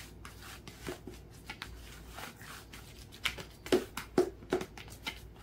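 A utensil scraping and knocking in a bowl as ground split-pea dhal puri filling is mixed. There are light scrapes throughout and a few sharper knocks close together about three and a half to four and a half seconds in.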